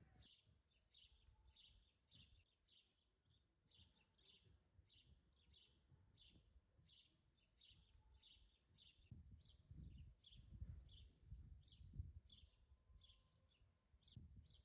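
A bird chirping faintly and over and over, short falling chirps about one and a half a second, with low rumbling bumps in the second half.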